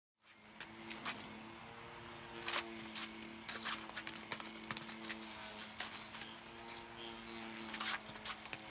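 Floorball stick hitting a plastic floorball: scattered sharp clacks as the ball is popped up off the blade and taken back down, over a steady hum.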